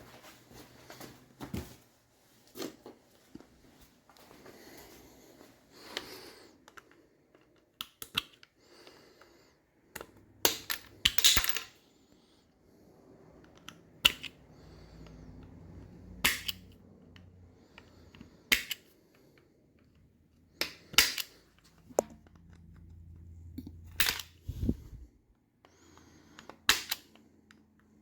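Hand tools and metal engine parts being handled during engine teardown: a string of separate sharp metal clicks and knocks at irregular intervals, with scraping and rustling between them.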